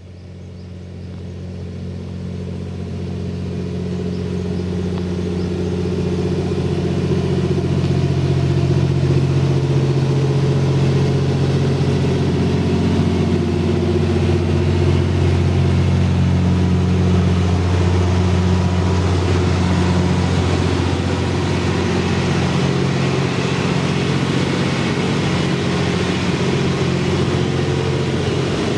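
Diesel engine running steadily with a low, even hum, growing louder over the first several seconds and then holding level, consistent with the Twilight Express Mizukaze's diesel generator engines running while the train stands at the station.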